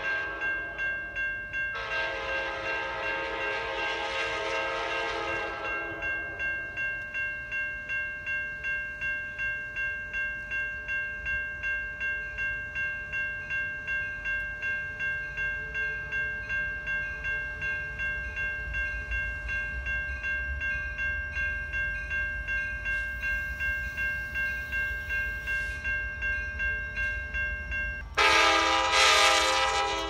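Amtrak passenger locomotive's horn sounding a chord of several tones, one long blast about two seconds in, over the steady pulsing ring of railroad crossing warning bells. Near the end the bells stop and the horn sounds again, louder.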